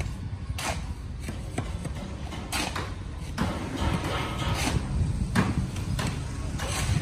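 Construction-site background noise: a steady low rumble with scattered sharp knocks and clanks.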